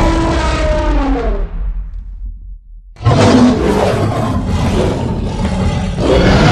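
Cartoon creature sound effects: a pitched call that slides down in pitch and fades out over the first two seconds. After about a second of near silence, a loud, rough roar starts suddenly and carries on.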